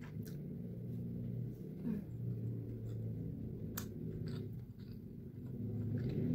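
A woman chewing a soft cinnamon roll with her mouth closed, humming several low, drawn-out "mmm" sounds of enjoyment, with a few small wet mouth clicks.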